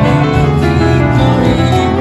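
Live band playing a song, with keyboard, saxophone, electric guitars and drum kit.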